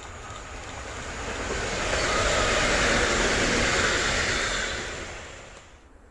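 EN57 electric multiple unit passing close by, a rush of wheels on rail that builds, is loudest about two to four seconds in, then fades and cuts off just before the end.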